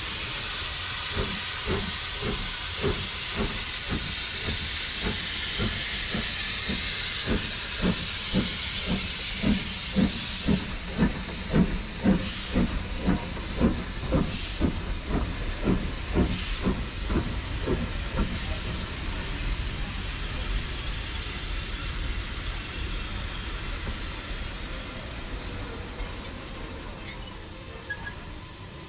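Steam locomotive passing close by at speed, hissing steam, with a regular rhythmic beat that is loudest as it goes past. Its coaches then roll by, fading away.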